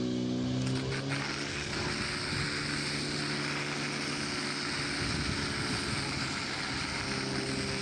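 Portable fire pump engine running hard. Its note shifts about a second in as the water starts to flow, and from then on there is a steady loud hiss of two hose jets spraying.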